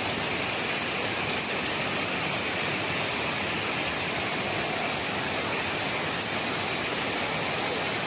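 Water pouring over a tank's concrete overflow weir and churning in the pool below, a steady rushing.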